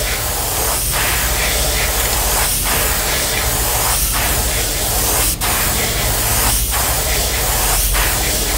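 Airbrush spraying a light coat of sepia paint onto a crankbait lure: a steady hiss with short breaks about every second and a half between passes. A low hum runs underneath, and one sharp click comes about five seconds in.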